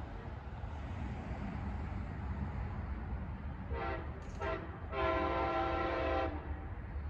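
Horn of an Amtrak ALC-42 locomotive leading the approaching Coast Starlight: two short blasts a little past halfway, then a longer blast of over a second, over a steady low rumble.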